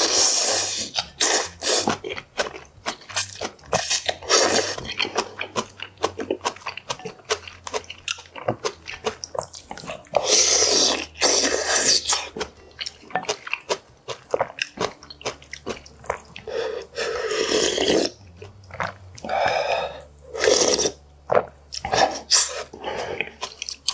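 A person eating noodles in broth close to the microphone: steady chewing with several long slurps of noodles and spoonfuls of broth, one about halfway through and two more in the last third.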